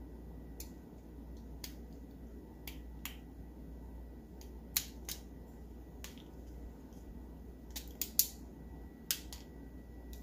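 Sharp clicks and snaps of plastic, a dozen or so at irregular intervals, the loudest about five and eight seconds in, as the melted seal on the sealed base of a 1971 Hot Wheels Sizzlers car is worked loose.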